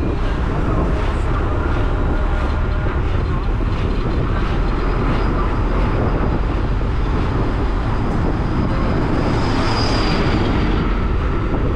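Steady, loud rumble of moving vehicle and road noise, with no breaks.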